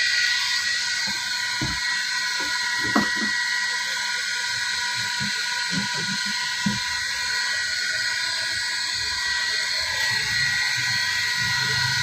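Egg incubator's small fan running with a steady hiss and a thin, even whine, with a few faint knocks in the first seven seconds.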